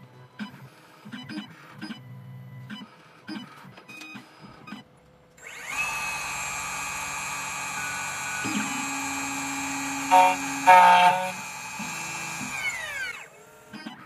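CNC key cutting machine cutting the second side of a HON66 key blank: short whirring axis moves, then the cutter spindle spins up about five seconds in and runs with a steady high whine. It grows louder about ten to eleven seconds in and winds down near the end.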